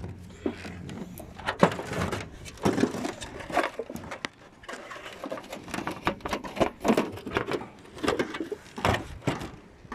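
Irregular knocks and clicks of hard objects being handled, several to a second and uneven in loudness.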